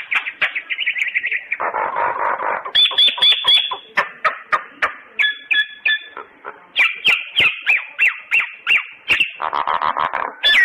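Common (Indian) myna singing: a fast jumble of whistled notes, chirps, pitch glides and sharp clicks, broken by two harsh, noisy squawks, one about two seconds in and one near the end.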